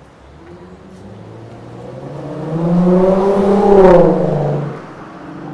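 A motor vehicle passing close by on the street, its engine note climbing as it approaches, loudest about four seconds in, then dropping in pitch and fading as it goes past.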